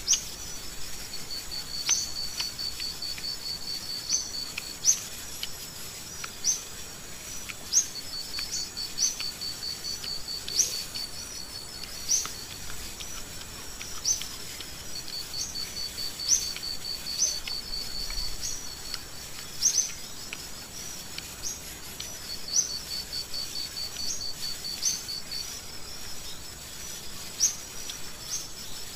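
Insects trilling in bouts of a few seconds, a fast, even pulsing trill, with short rising chirps repeating about once a second over it: an outdoor insect-and-bird ambience.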